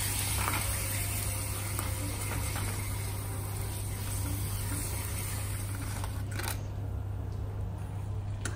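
Pappadam frying in hot oil in a small iron kadai: a steady sizzling hiss that stops about six and a half seconds in, with a click. A low steady hum runs underneath.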